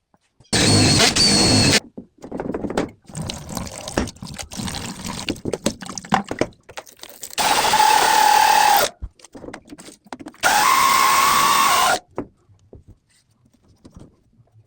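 Power drill run in three short bursts, each with a steady motor whine that starts and stops sharply, with irregular clattering of tools and parts being handled between the bursts.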